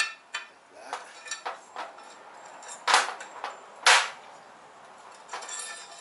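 Steel aerator parts clinking and clanking as a hub unit is handled and slid onto the steel tine shaft: a run of sharp metal knocks, the two loudest about three and four seconds in, then a short scraping rattle near the end.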